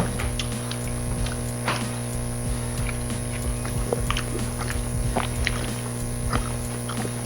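Background music playing under scattered small clicks and smacks of eating: chewing and a fork or spoon against a plate.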